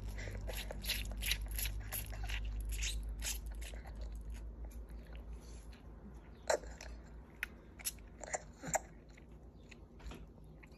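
Small child eating soft cooked noodles by hand: wet mouth clicks, smacking and chewing, coming quickly for the first few seconds and then only now and then.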